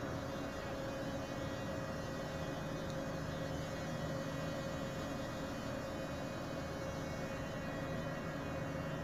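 Steady machinery hum with several fixed tones, from a ship's heavy fuel oil purifier (centrifugal separator) just started and slowly running up to speed among the other running engine-room machinery.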